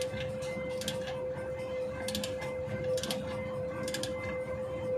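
Socket ratchet wrench clicking in short bursts, about one burst a second, as the handle is swung back between turns on a bolt, over a steady hum.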